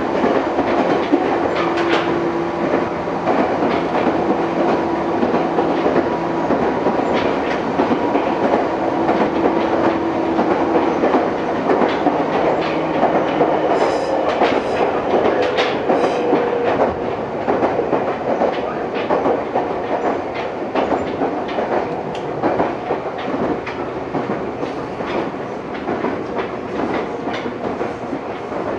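Meitetsu 6000 series electric train running, heard from inside the car: wheels clicking over rail joints under a steady hum of motors and gears, with a few sharp metallic clicks about halfway through.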